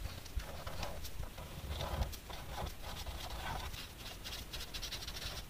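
Felt-tip markers drawn across paper in short, quiet scratchy strokes, one letter stroke after another, with a few small clicks.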